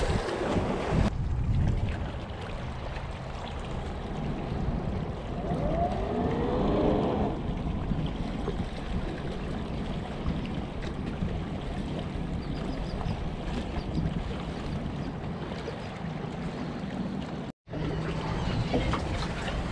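Wind on the microphone and water lapping against jetty rocks, with a splash near the start as a released fish goes back into the water, and the steady low drone of a large sport-fishing boat's engines passing through the channel.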